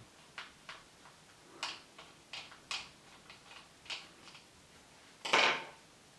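Plastic casing of an Air Wick air freshener handled in the hands: a string of light clicks and taps from the plastic, with one louder clatter about five seconds in.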